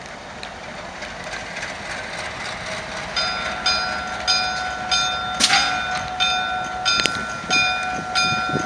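ALCO diesel locomotive rolling slowly closer, its engine growing louder. From about three seconds in, its bell rings steadily, about two strokes a second. A brief noisy burst comes about halfway through and a sharp click shortly after.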